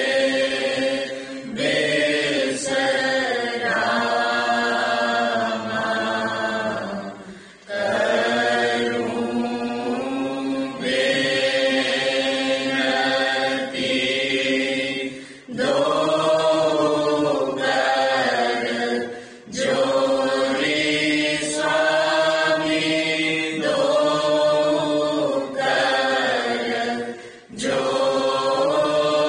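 Devotional chant sung by voices in long, drawn-out phrases, with short pauses for breath between them.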